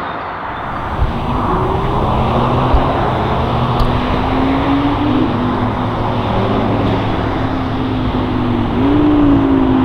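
Sports car engine running at low revs, its pitch slowly climbing, dipping, then stepping up and holding steady near the end. A sharp click comes about a second in.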